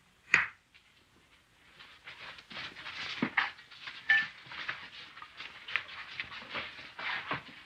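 A single sharp hand clap, then a swelling clatter of many irregular knocks and shuffles as a crowd of boys scramble over wooden benches to their places at the refectory tables.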